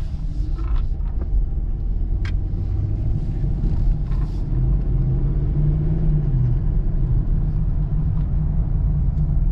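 Dodge Charger police car's engine heard from inside the cabin, pulling away from a stop, its note rising as the car picks up speed, with a single sharp click a little over two seconds in. The owner hears a light knock from this engine under hard acceleration, which he suspects may be lifter knock, perhaps from the car sitting a long time.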